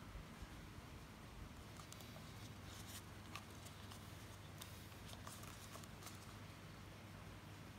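Faint scattered taps and rustles of a paper cup being turned in the hands and drawn on with a marker pen, over a low steady hum.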